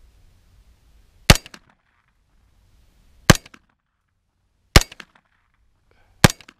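A 9mm KE Arms AR9 pistol firing four single aimed shots, about one and a half to two seconds apart, each a sharp crack with faint short after-sounds.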